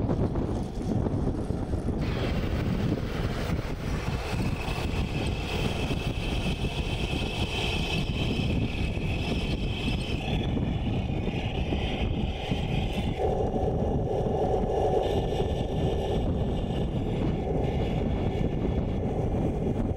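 Wind buffeting the microphone, with the whine of 1:16-scale RC tanks' electric drive motors and gearboxes as they work over a steep dirt hill. The whine starts about two seconds in and drops lower in pitch partway through.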